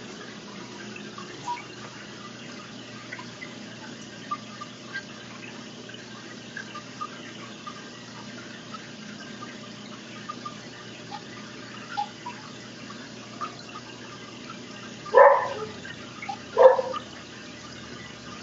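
Water trickling steadily into an aquarium, with many small scattered drips and plinks. Two brief, louder sounds come a second and a half apart near the end.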